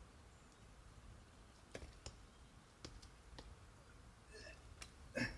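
Faint, scattered clicks and taps, about half a dozen at uneven intervals, the loudest near the end: a climber's hands and rubber-soled shoes striking and scraping the rock while moving up a boulder problem.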